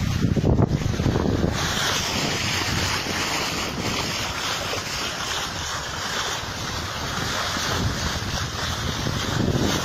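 Wind buffeting the microphone over the rushing of water along the hull of a Van de Stadt 34 sailing yacht under spinnaker, with a brighter hiss of bow wave and spray from about a second and a half in.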